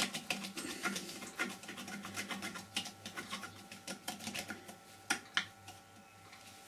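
Wood lathe running with a faint steady hum while a turning tool works the spinning green-wood blank, giving a rapid, irregular clicking as the tool meets the cracked, uneven surface.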